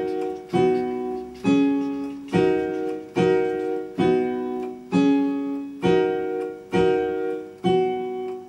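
Piano-type keyboard playing a repeated chord pattern, struck just under once a second, each chord ringing and fading before the next.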